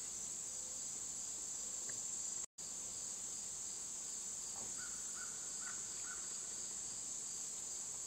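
Steady high-pitched insect chorus with a pulsing undertone, typical of late-summer crickets and katydids. The sound drops out completely for a moment about two and a half seconds in, and a few faint short chirps come about five seconds in.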